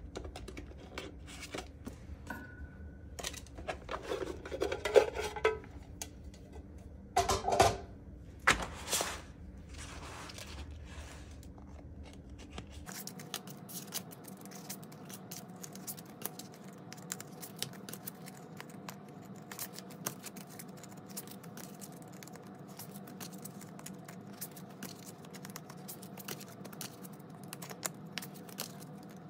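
Paper bills and plastic cash envelopes rustling and crinkling as money is pulled out of the envelopes, played sped up. There are a few louder rustles in the first nine seconds, then a dense run of quick crackles and ticks.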